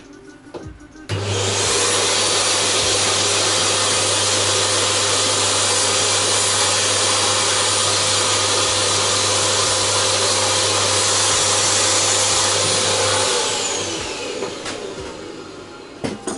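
A powerful electric air-moving motor, of the vacuum-cleaner or blower kind, switches on sharply about a second in: a loud rush of air over a steady hum and high whine. It is switched off near the end and winds down with falling pitch.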